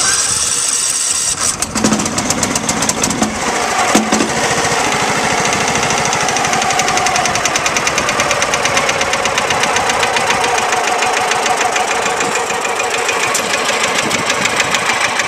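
Garden tractor engine started with the push button on choke, catching at once and then running steadily. Two brief knocks stand out about two and four seconds in.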